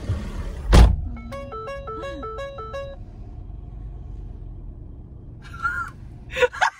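A car idling with a low steady rumble and a single loud thump just under a second in. Then about two seconds of a short music sting of quick, hopping notes.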